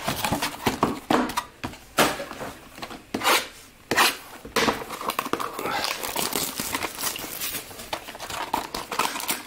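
Plastic shrink-wrap on a trading-card box being torn and crinkled, with sharp taps and clicks from handling the cardboard box at first and steadier crinkling from about halfway in.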